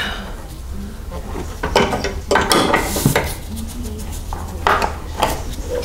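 A few scattered metallic clinks and rattles with some scraping, as a bungee cord's hook and gloved hands work among the engine parts under a truck's hood. A steady low hum runs underneath.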